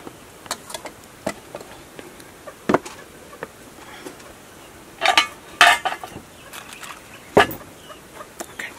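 Scattered light clinks and knocks of dishes and utensils being handled, a handful of short sharp ones spread through, the loudest about five and seven seconds in, over a steady background buzz of insects.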